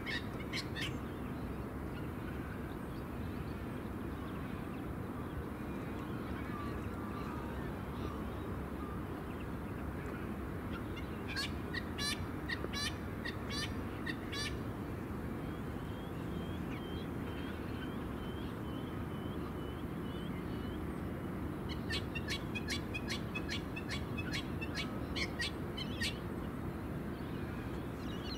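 Birds calling in clusters of quick, harsh repeated notes, about 11 seconds in and again from about 22 to 26 seconds, with a thin string of softer chirps in between. Under them runs a steady low rumble of distant airport and jet engine noise.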